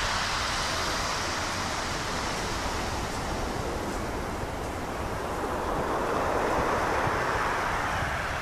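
Small waves washing in along the shore, with wind rumbling on the microphone; the wash swells a little about five to seven seconds in.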